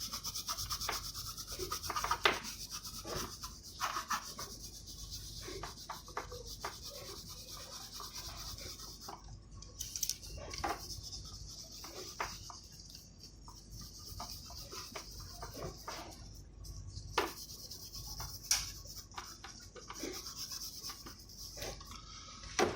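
Light rubbing, scraping and scattered taps of hand tools on a PS5 motherboard, over a steady high hiss.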